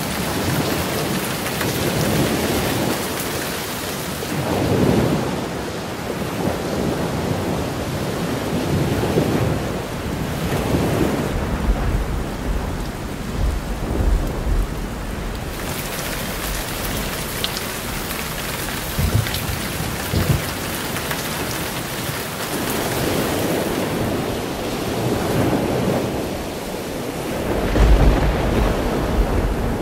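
Heavy rain falling steadily, with low rolls of thunder several times, the loudest near the end.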